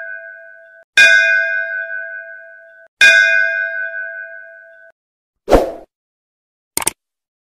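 A bell struck twice, about two seconds apart, each stroke ringing out and fading. Then a short whoosh and a quick double click, the sound effect of an animated subscribe button.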